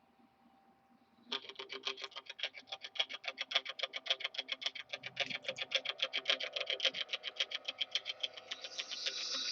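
Intro music begins after about a second of near silence: a fast, even pulsing, about eight beats a second, with a pitched, guitar-like tone, growing louder.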